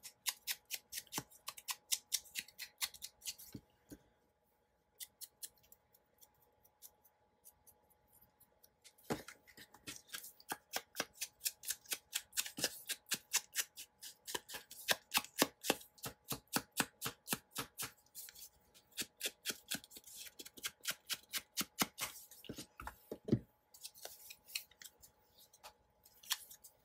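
Quick, short scraping strokes on paper, about four a second, as a paper edge is worked by hand. The strokes thin out for a few seconds early on, then pick up again.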